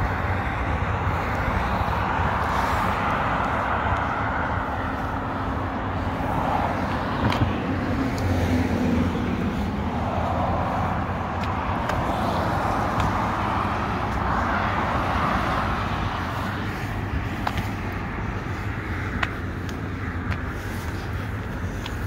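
Highway traffic heard from above: cars pass one after another, each swelling and fading as it goes by, over a steady low rumble.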